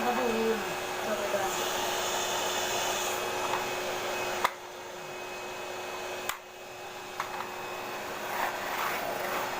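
Sharp EC-8305 vacuum cleaner motor running steadily with a constant hum. There is a sharp click about four and a half seconds in and another a couple of seconds later, and the running sound gets quieter after each one.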